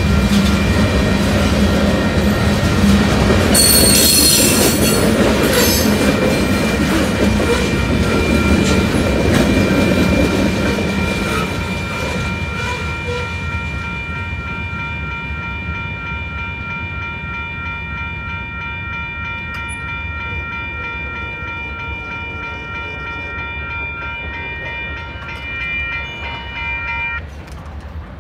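Union Pacific freight train's cars rushing past at speed, a loud rolling rumble with clickety-clack of the wheels that fades away over the first dozen seconds as the end of the train passes, with a brief high screech about four seconds in. A grade-crossing warning bell rings steadily throughout and stops suddenly near the end.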